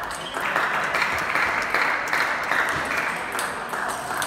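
Clapping and applause after a point won at table tennis, with the sharp clicks of table tennis balls striking bats and tables.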